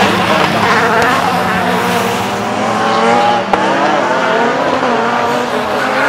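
Saloon race car engines at high revs as cars climb past one after another, the engine notes rising and dipping with throttle and gear changes.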